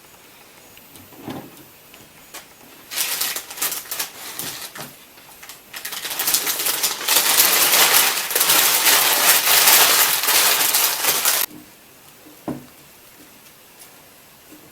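Crackling, rustling noise in short bursts, then a loud, dense stretch of it lasting about five seconds that stops abruptly, followed by a single knock.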